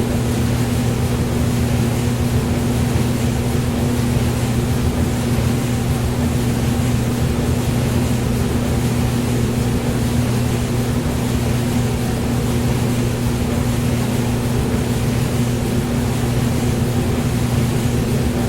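Hair dryer running steadily: an even rush of blown air over a constant motor hum, with no change in speed.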